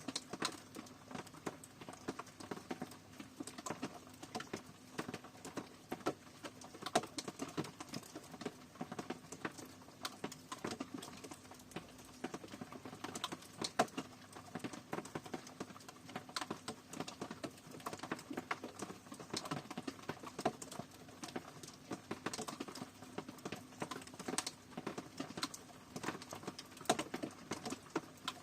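Rain falling, heard as many separate drops tapping irregularly on a hard surface, with a few louder drips standing out.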